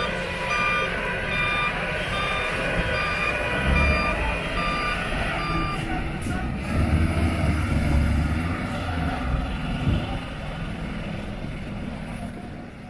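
A truck's reversing alarm beeping at an even pace, a little faster than once a second, stopping about six seconds in. Under it the diesel engine of an old Magirus 6x6 truck labours through mud and water, revving harder between about four and ten seconds before easing off.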